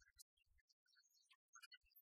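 Near silence, broken only by faint, scattered short blips and low thumps.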